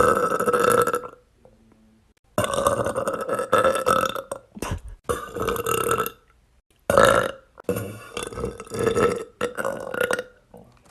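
A girl's loud burps, one after another. One ends about a second in, then comes a long drawn-out burp of about four seconds, then several shorter ones in quick succession.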